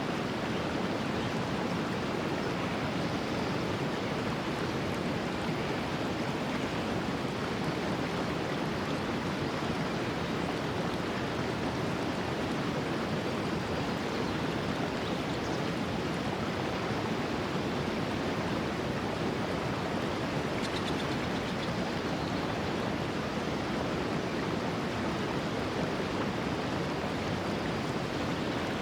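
Steady rush of a clear mountain stream flowing over rocks, an even, unbroken water noise.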